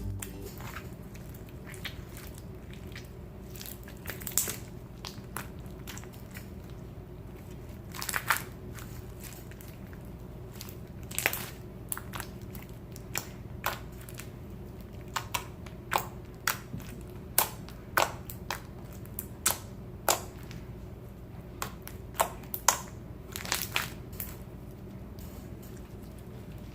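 Slime being played with by hand: irregular sharp pops and crackles, a few seconds apart at first and coming more often in the second half, over a steady low hum.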